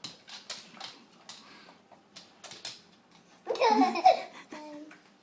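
A baby laughing: a run of short breathy giggles, then a loud squealing laugh about three and a half seconds in.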